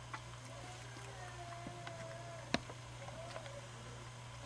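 Ring-tailed lemur handling its covered plastic food bowl while eating: a sharp click about halfway through and a louder knock at the end, over a steady low hum.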